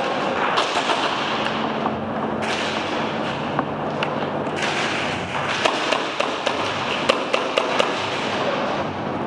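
Airsoft guns firing inside a warehouse arena: scattered sharp pops, then a quick string of about eight cracks about two-thirds of the way through, over a steady background rustle.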